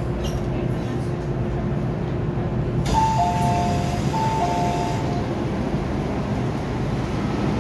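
Inside an MTR M-Train carriage, a steady rumble with a low hum. About three seconds in, the doors open with a hiss and a two-note descending door chime sounds twice.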